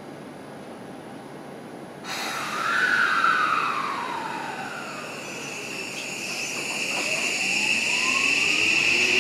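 Odakyu 5000-series electric train pulling away: a sudden hiss about two seconds in and a falling whine, then the full-SiC VVVF inverter's several rising tones climbing as it accelerates, over a steady high whine.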